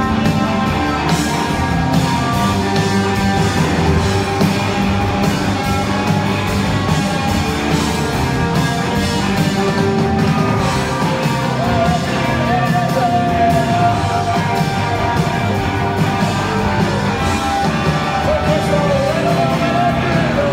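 Rock band playing live, with electric guitars and a steady drum beat, heard from within the audience of a club. A voice sings over the band from about twelve seconds in.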